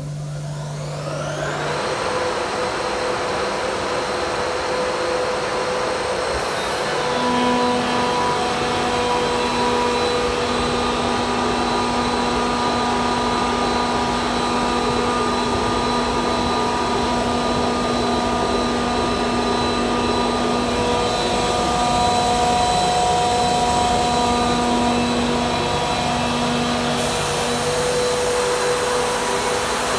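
Grassair S87 13 SFX rotary screw air compressor starting up, its whine rising over the first couple of seconds, then running steadily under load at about 8 bar with a continuous whine and hum. A higher hiss joins in near the end.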